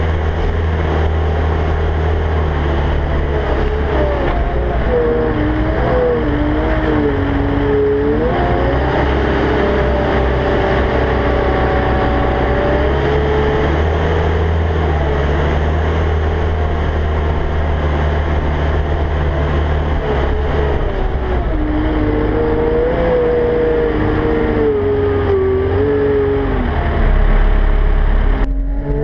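Cat 299D XHP compact track loader's diesel engine running as the machine travels, with a whine that rises and falls in pitch as it moves. A louder, deeper stretch comes near the end, then the sound changes abruptly.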